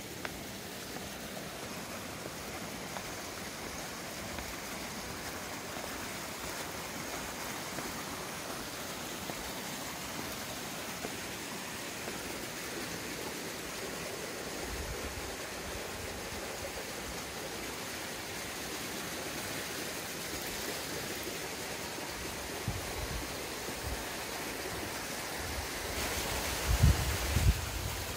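Steady rush of running water. Low rumbling thumps come in near the end.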